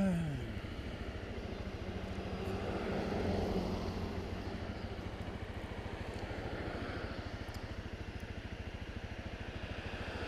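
Honda CRF250 Rally's single-cylinder engine running at low revs with an even, fast putter. Its pitch drops away just at the start as the revs fall back, then holds steady.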